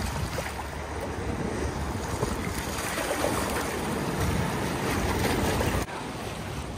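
Fast river current rushing and splashing against riprap rocks, with wind buffeting the microphone; the level drops suddenly near the end.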